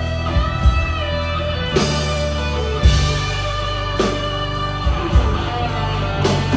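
Live rock band playing an instrumental passage: electric guitar over sustained bass notes, with scattered drum hits.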